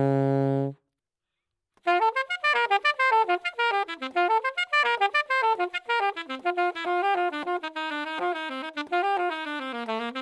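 Saxophone played solo: a held low note that cuts off suddenly under a second in, about a second of silence, then a fast improvised run of quick notes moving up and down. Picked up close at the bell by a Shure Beta 98H/C clip-on condenser mic, it sounds clean, with little echo from the room.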